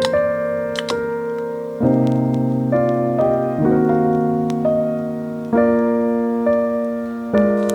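Background piano music: slow, gentle chords struck about every two seconds and left to ring.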